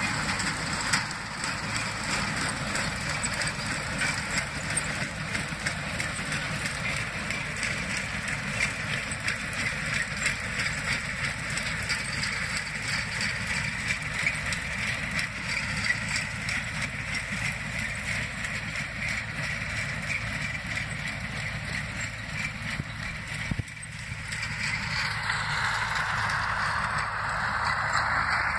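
Massey Ferguson tractor engine running steadily while it drives a Gallignani round baler through the hay, the baler's pickup and chamber rattling along with it. Near the end the machinery gives way to a louder, even hiss.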